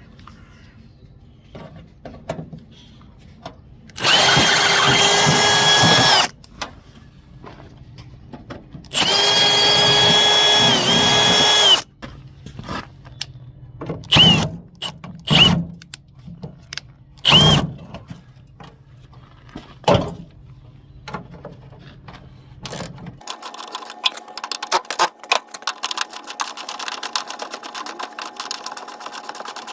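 Power drill run at full speed in two bursts of about two seconds each, then a few short trigger pulls, with clicks and knocks in between. Near the end a different steady hum with a fast rattle takes over.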